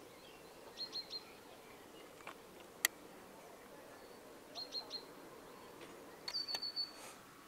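A small bird chirping over a faint outdoor hush: two quick groups of three high chirps, then a longer run of notes near the end. A single sharp click a little before the middle.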